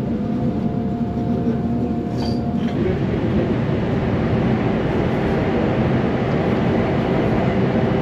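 Commuter train running, heard from inside the car: a steady rumble of wheels and motors, with a steady whine over it for the first few seconds, after which the rumble grows a little louder.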